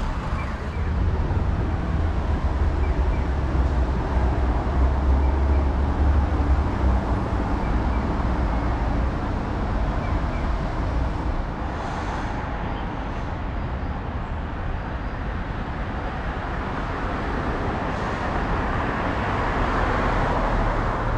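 Road traffic noise on a city street: a steady wash of passing vehicles, with a heavier low rumble for the first several seconds and the level dropping a little about halfway through.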